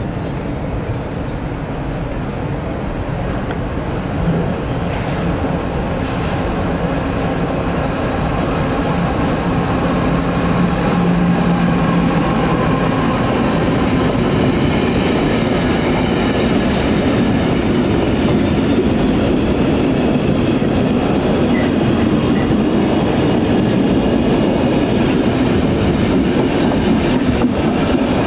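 Intermodal freight train of tank containers and trailers on flat wagons approaching and rolling past, its wheels running on the rails. It grows louder over the first ten seconds, with a steady low hum for several seconds about a third of the way in, then holds a steady rumble as the wagons pass.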